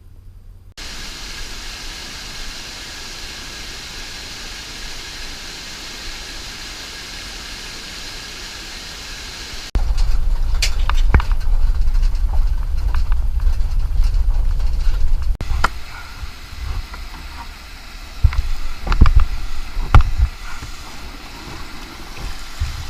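Whitewater rapids rushing with a steady hiss. After a sudden cut, a much louder, deep rumble of water and wind buffeting a close-up camera microphone. After a second cut, scattered knocks and splashes sound over the rumble.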